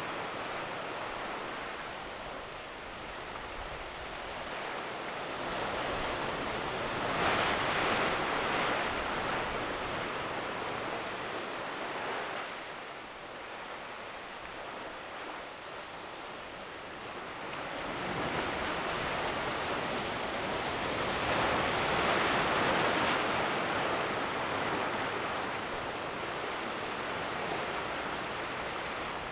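Sea waves surging and washing among shoreline rocks, a continuous rush that swells louder about seven seconds in and again for several seconds from about eighteen seconds.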